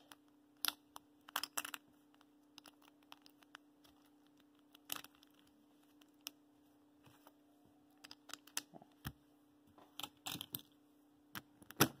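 Plastic pieces of an MF3RS3 M speedcube clicking and snapping as edges and corners are pushed into place: scattered, irregular light clicks, the loudest near the end, over a faint steady hum.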